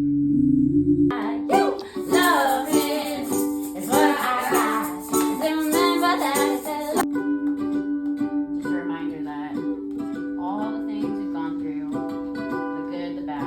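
A singing bowl's steady ring, then from about a second in a ukulele strummed under a singing voice. The music is loudest for the first several seconds, then drops to softer strumming with lighter singing, the bowl's tone ringing on underneath.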